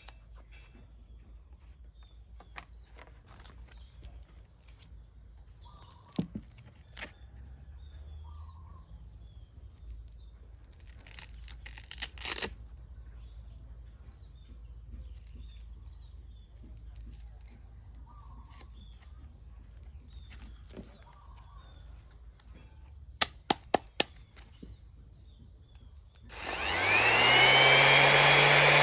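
Scattered handling taps and a quick run of sharp clicks, then near the end a DeWalt DWE6423 random orbital sander switches on, its motor whine rising quickly and settling into a steady loud run.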